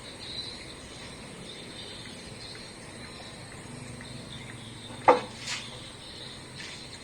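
Steady, faint high-pitched insect chirring in the background, broken by one sharp clack about five seconds in.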